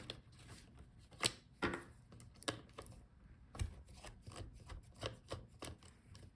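Small screwdriver working the screws of a laptop's SSD cover: scattered sharp clicks and taps with light scraping and handling of the parts.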